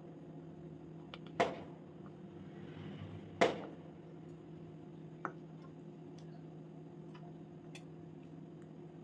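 A metal fork clinking against a glass tumbler while biscuits are dipped in melted white chocolate: two sharp clinks about a second and a half and three and a half seconds in, a lighter one near five seconds, then a few faint ticks. A steady low hum runs underneath.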